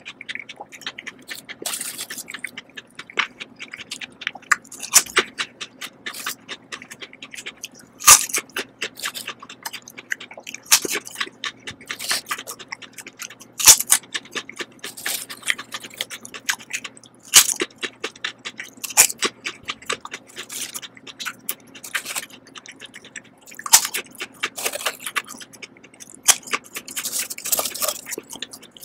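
Close-miked mouth chewing of Lay's potato chips: rapid crisp crunches and crackles, with several loud crunches a few seconds apart as fresh chips are bitten.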